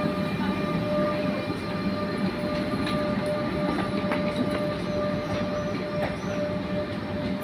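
Rodalies de Catalunya electric commuter train pulling away from the platform: a steady running noise with a steady high whine, and a few light clicks from the wheels. It eases slightly as the train moves off.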